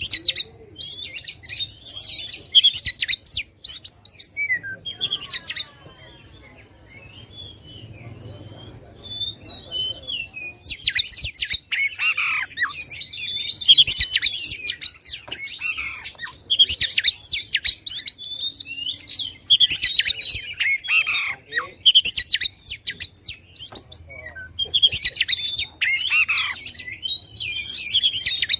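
Oriental magpie-robin (kacer) in full song: loud, rapid phrases of varied chirps and whistles in bursts with short breaks. From about four seconds in the song thins to a few slurred whistles, then dense, loud bursts resume about ten seconds in.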